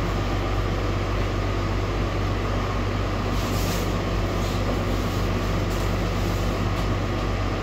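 Steady machine hum with a deep low drone that does not change. Near the middle and end there is faint rustling of a plastic rain jacket being pulled on over the shoulders.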